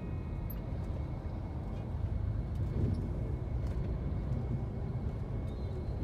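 Steady low engine and road rumble heard from inside a moving bus's cabin.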